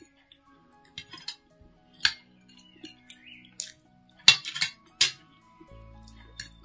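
Metal fork and spoon clinking and scraping against a ceramic plate while gathering chow mein noodles: several sharp clinks, the loudest about four and five seconds in.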